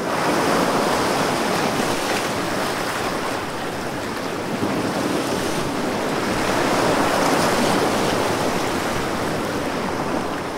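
Sea surf washing in, a steady rush of noise that swells and eases slowly.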